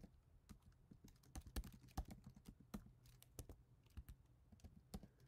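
Faint, irregular clicking of keys being typed on a computer keyboard.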